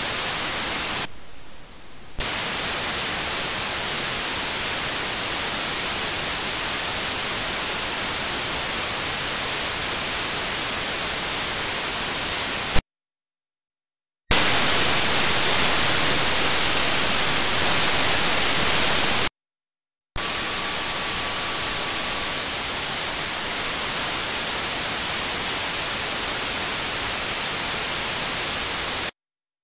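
Steady hiss of static from an RTL2832 SDR receiver running in HDSDR, with no FM station audio coming through. It cuts out twice for about a second near the middle, and between those drop-outs the hiss is louder and duller.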